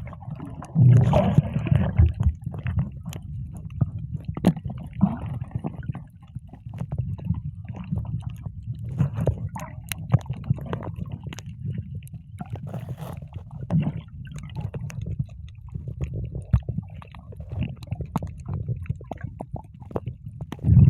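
Water splashing and sloshing, with many irregular small knocks and clicks over a steady low rumble.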